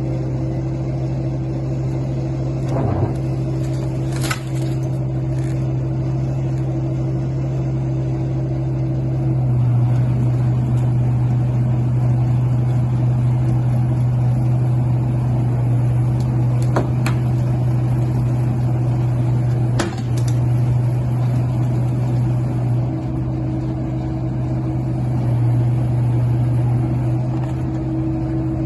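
Heavy diesel engine running steadily at a constant speed, with a few short metallic clanks over it.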